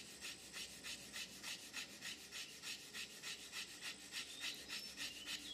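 Fire plough in use: a wooden stick rubbed hard back and forth along a groove in a wooden hearth board, a dry rasping scrape in a quick, even rhythm of about four strokes a second, grinding out wood dust toward an ember.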